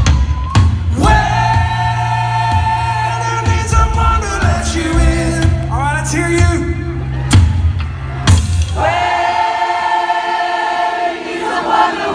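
Live rock band in a concert hall: drums, bass and electric guitars under long held sung notes, with a few sharp drum or cymbal hits. About nine seconds in, the drums and bass drop out and the voices carry on over a lighter backing.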